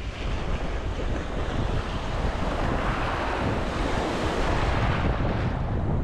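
Ocean surf breaking and washing up the beach, one wave swelling to its loudest about halfway through and easing off near the end, with wind rumbling on the microphone.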